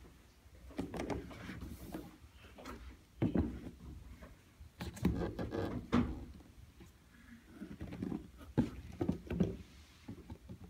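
Hands moving a pair of patent-leather sneakers about on a cardboard shoebox: irregular scuffs, rubs and light knocks that come in several bunches.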